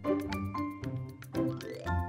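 Background music: a light tune of short, bright notes over a steady ticking beat.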